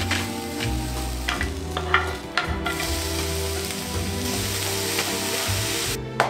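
Food sizzling in oil in a small rectangular frying pan: an even frying hiss that starts about two and a half seconds in and cuts off suddenly near the end. A few light clicks of utensils come before it.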